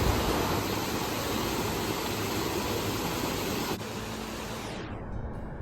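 Steady rushing roar of a waterfall's falling water. About four seconds in it drops in level and then turns muffled as the high end fades away, and faint chiming music comes in near the end.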